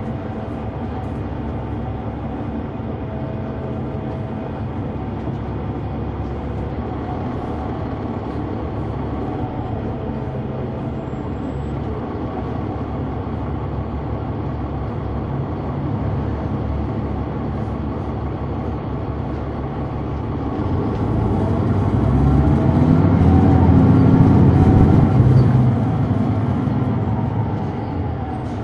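The Caterpillar C9 ACERT diesel engine and ZF Ecomat transmission of a 2004 Neoplan AN459 articulated bus, heard from on board, running steadily with a whine. About three-quarters of the way in, the sound grows louder for several seconds, its whine rising and falling in pitch, then it eases back.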